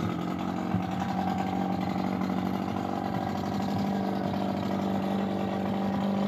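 Small boat's outboard motor running steadily just after being restarted: an even hum that holds one pitch throughout.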